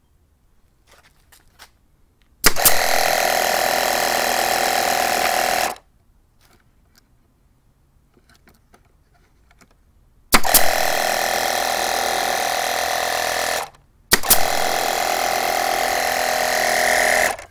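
Small 12 V tire-inflator pump converted into a mini air compressor, switching on three times for about three seconds each. Each run starts right on a sharp snap from a pneumatic brad nailer firing. The pump refills the air after each shot with a steady buzzing drone and cuts off abruptly when its added pressure switch reaches about 80 psi.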